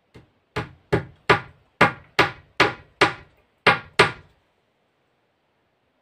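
Hammer driving a nail into a board-lined wooden wall: one light tap, then about nine sharp blows at two to three a second, stopping about four seconds in.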